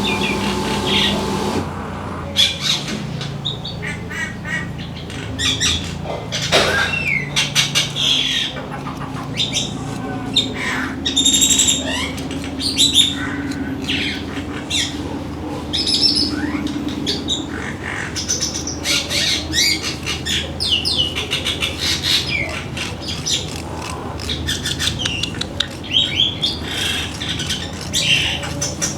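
Many birds calling: short chirps and squawks overlapping, densely and without a break.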